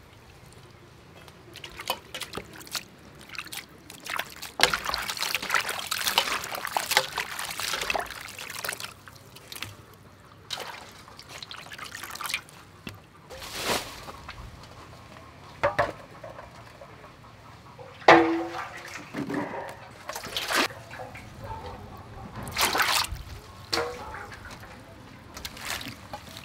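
Water sloshing and splashing in an aluminium bowl as vegetables and herbs are washed and moved about by hand, in irregular bursts. A sharp knock with a short ring, about two-thirds of the way through, is the loudest sound.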